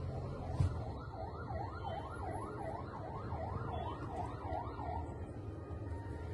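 Emergency vehicle siren in a fast yelp, its pitch sweeping up and down about three times a second, stopping about five seconds in, over a steady low rumble.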